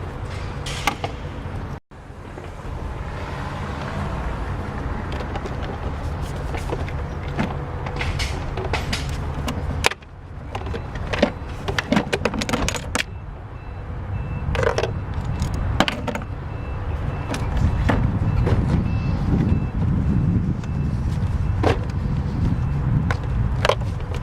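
A car engine running steadily, with scattered clicks and knocks over it, and a faint, evenly pulsing beep for a while in the middle. The sound cuts out abruptly twice.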